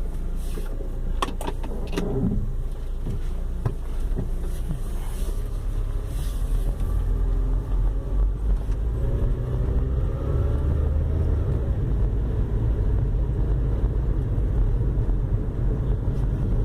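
Inside the cabin of a 2004 Honda Civic driving: a steady low road and engine rumble, with a few sharp clicks near the start and the engine note rising as the car gathers speed around the middle.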